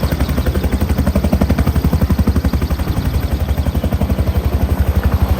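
Helicopter running close by, its rotor blades making a steady, rapid, even thumping.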